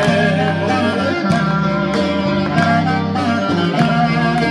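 Greek folk dance music in an instrumental passage between sung verses: a melody line with vibrato over a plucked-string accompaniment and bass on a regular beat.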